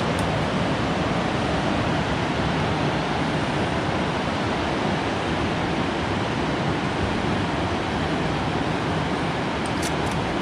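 Steady, even rushing noise of wind and ocean surf on the open coast.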